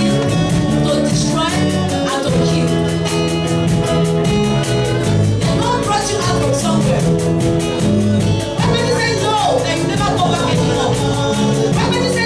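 Christian worship song: voices singing a melody over a band with a steady drum beat and sustained chords.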